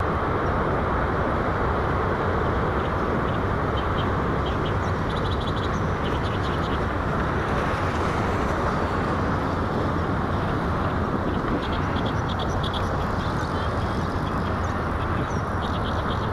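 Outdoor ambience: a steady rushing background noise, with repeated bursts of quick, high small-bird chirping.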